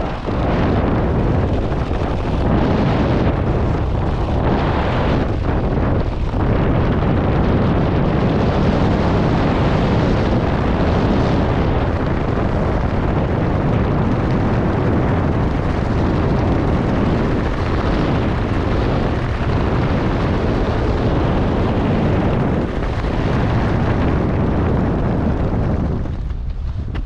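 Loud wind rushing over a skydiver's body-worn camera microphone as he flies his parachute canopy. It drops off sharply near the end as he touches down.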